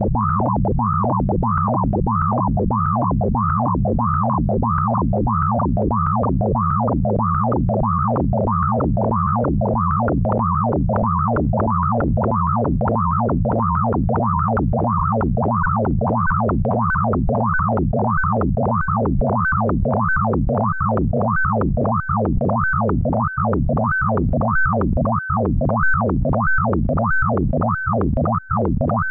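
Synthesized electronic sound from a Pure Data patch sonifying a photograph's pixel colours: a steady low drone under a tone that sweeps up and down in pitch about one and a half times a second. The sweeps grow sharper and peak higher toward the end.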